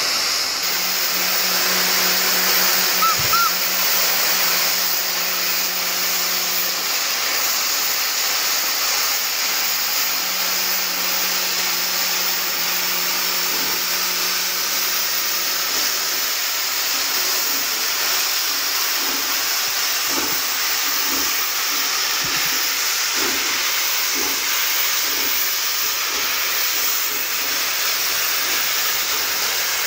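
Hv3 steam locomotive blowing off a steady hiss of steam. A low hum comes in twice in the first half, and faint irregular puffs follow in the second half.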